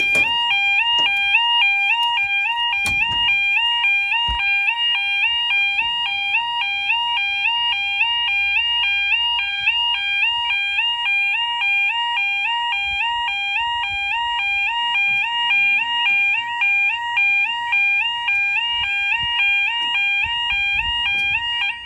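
Level crossing warning alarm sounding as the barriers lower for an approaching train: a two-tone warble, rapidly switching back and forth between two pitches. It cuts off suddenly near the end.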